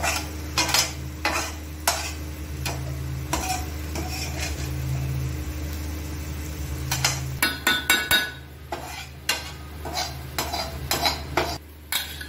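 Perforated steel spoon stirring and scraping cooked ridge gourd curry in a stainless steel pot, clinking against the pot's sides. The strokes come spaced out at first and then in quick, repeated clinks in the second half.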